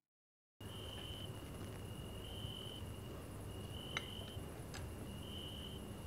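Faint crickets chirping in repeated half-second trills at a steady high pitch over a low hum of night ambience. It starts about half a second in, after silence. Two small clicks of chopsticks against dishes come near the middle.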